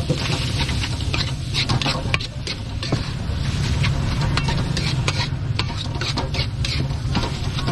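Metal spatula scraping and clicking irregularly against a large aluminium wok as a bean-sprout filling is stir-fried, over a steady low hum.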